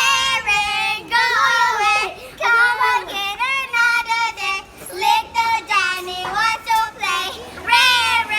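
Young girls singing together in high voices, in short held phrases with brief breaks between them.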